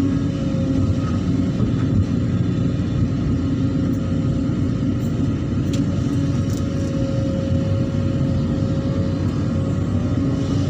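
An engine running steadily with a low rumble and a faint, slightly wavering whine above it.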